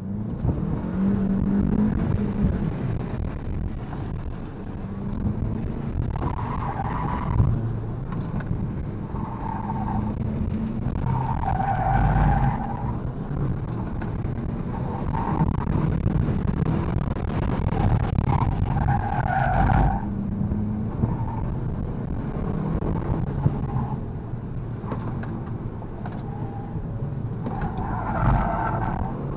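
VW MK7 GTI's turbocharged four-cylinder engine and road noise heard from inside the cabin during an autocross run, with the Falken Azenis RT615K+ tyres squealing in short bursts through the cone corners, about six times.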